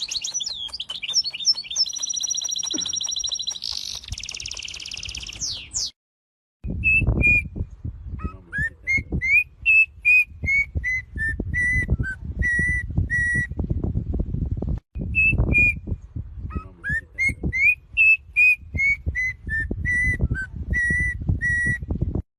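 Songbird singing. First comes a fast, high trilling song. After a break there is a phrase of clear whistled notes, first rising, then stepping down and settling into repeated notes. The phrase is heard twice, with heavy wind rumble on the microphone.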